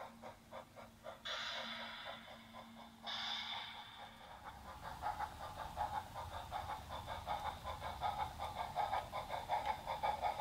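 Sound unit of a G-scale model steam locomotive: a steady run of rapid exhaust chuffs, with two short hisses of steam about one and three seconds in. The chuffs grow louder from about halfway.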